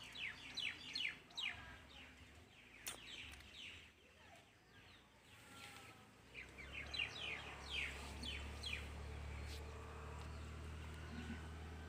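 Small birds chirping: rapid runs of short, falling chirps, one bout in the first two seconds and another about six to eight seconds in. A low steady rumble comes in about six seconds in and carries on underneath.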